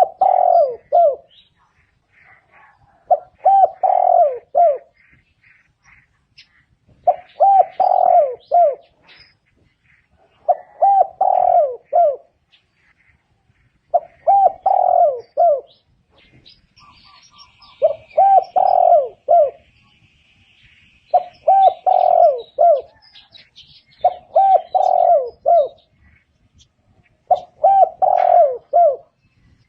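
Spotted dove cooing, repeating the same short phrase of several falling coos about every three and a half seconds. Faint chirps of other small birds sound between the phrases.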